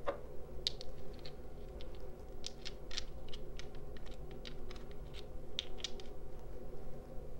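Small crystal stones clicking and tapping against each other as they are handled: an irregular run of light clicks, over a faint steady hum.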